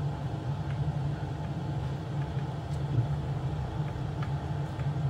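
Hot-air rework station blowing steadily, a constant low hum with an airy hiss, as its hot air melts a hot-melt glue stick; a few faint light clicks.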